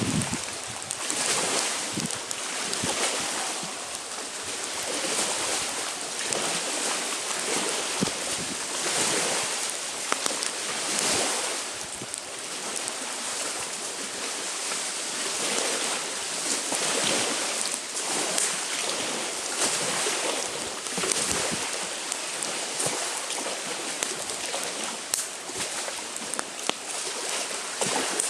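Small wind-driven waves washing onto a lakeshore, rising and falling every second or two, with wind and a campfire crackling now and then with a sharp pop.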